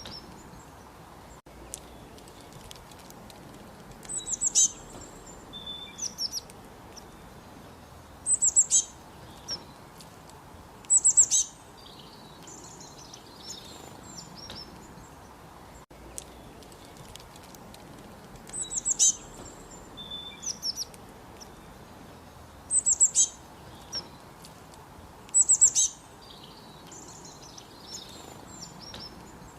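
Songbirds singing: short phrases of high, bright chirps and trills every few seconds, with pauses between, over a steady background hiss. The same run of calls comes round again about halfway through.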